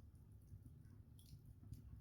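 Faint crackling of an open wood log fire, with a couple of sharper crackles in the second half.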